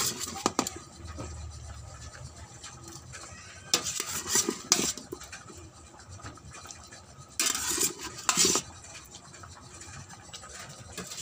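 A utensil stirring chicken curry in a stainless steel pot, scraping and clinking against the metal in three short bouts: near the start, about four seconds in and about eight seconds in.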